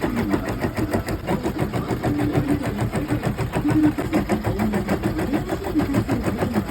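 Sewing machine running steadily at speed, a fast, even ticking of the needle stroke over a low motor hum.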